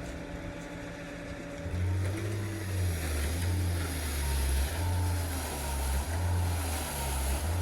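A heavy truck's diesel engine running steadily. About two seconds in, a louder low rumble joins it and rises and falls unevenly.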